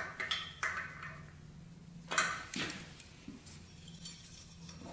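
Sharp metallic clinks of a hand tool against the engine as the spark plug is tightened back into the cylinder head of a 50cc two-stroke mini dirt bike: four or five separate clinks, the loudest about two seconds in, over a faint steady hum.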